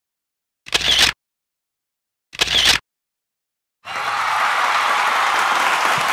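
Two short camera-shutter clicks, about a second and a half apart. About four seconds in, a steady hiss starts and holds level.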